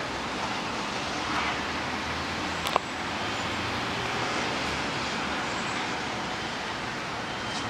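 Steady hiss of rain and city traffic on wet roads, with one sharp click about two and a half seconds in.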